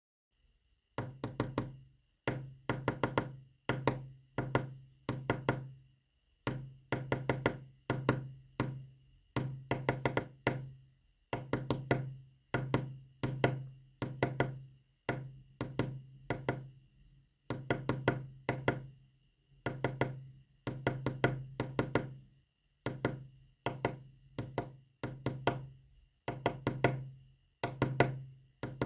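Knocks tapped out in quick groups of several strikes, about one group a second, each group ringing briefly and fading before the next: Morse code being knocked out.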